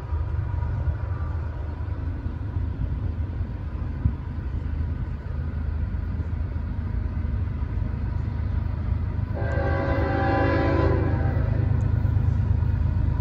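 A train's steady low rumble, growing louder, with one short blast of the locomotive's air horn about nine seconds in, lasting about a second and a half.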